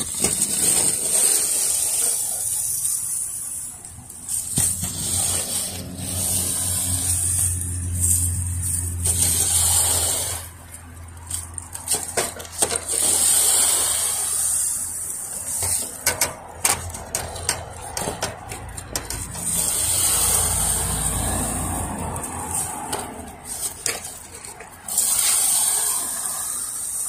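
Gutter guard brush on an extension pole scraping along the gutter guard mesh and shingles, pushing off clumps of dry pine straw: repeated strokes of scraping and rustling with many short clicks.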